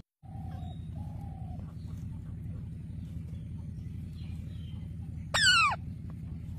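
Pet parrots calling: two soft, short whistled notes early on, then one loud harsh squawk about five seconds in that falls in pitch, over a steady low hum.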